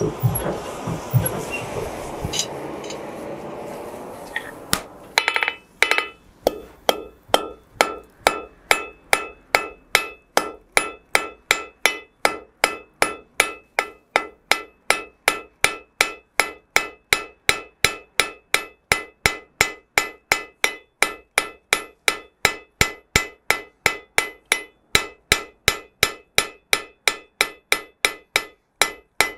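Hand-worked forge bellows blowing air through the forge fire, a rushing sound, for the first few seconds. Then a blacksmith's hammer strikes red-hot iron on an anvil in a quick, even beat of ringing blows, forging a medieval arrowhead.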